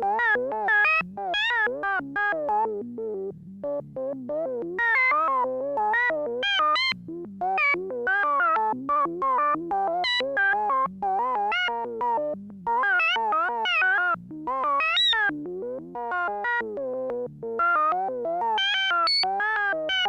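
Medium-pitched synthesized electronic sound effect: a rapid stream of short warbling tones, each wobbling up and down in pitch, going on without a break.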